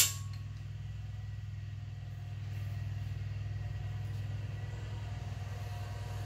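A single sharp metallic click at the start as the cam bearing installation tool is readjusted, then a steady low hum.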